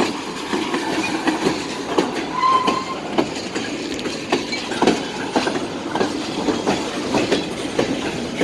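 Freight train cars rolling past close by, their steel wheels clacking irregularly over the rail joints over a steady rumble. A short high squeal comes in about two and a half seconds in.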